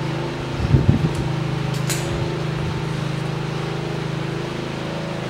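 A steady, even machine drone, with a few knocks about a second in and a short click near two seconds, as parts are handled in a car's engine bay.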